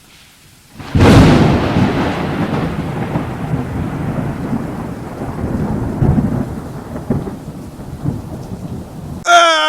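A thunder clap sounds suddenly about a second in, then rolls on in a long rumble that slowly fades. Near the end a crow caws loudly.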